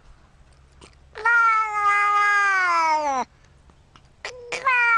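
A domestic cat giving two long, drawn-out meows of about two seconds each, held at a steady pitch and sliding down at the end; the second starts near the end and is still going.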